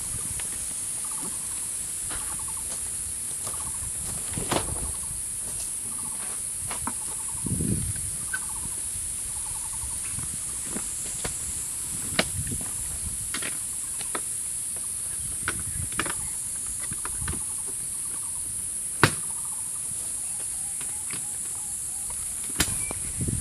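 Short trilled animal calls repeating every second or two over a steady high-pitched hiss, with scattered sharp clicks and knocks, the loudest about 19 seconds in.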